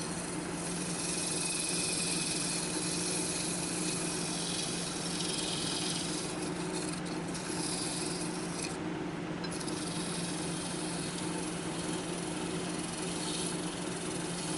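Wood lathe running with a steady motor hum while sandpaper is held against the spinning spindle, giving a steady rubbing hiss. The hiss drops out briefly twice, a little past the middle, as the paper is lifted and moved.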